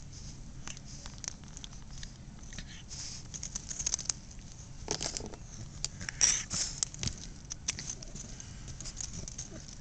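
A Boston terrier puppy chewing and gnawing a red rubber chew toy: irregular small clicks of teeth on rubber, busiest about five to seven seconds in.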